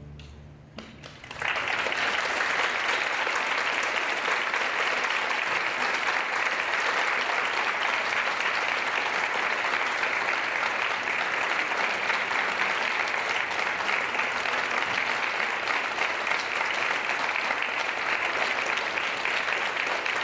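After a brief hush, an audience breaks into applause about a second and a half in, and the clapping carries on steadily.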